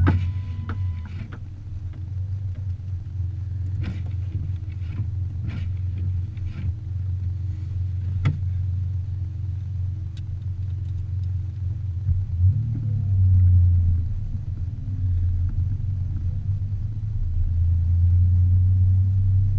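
Car running with a steady low rumble that swells twice, about two-thirds of the way in and again near the end, with a few scattered clicks.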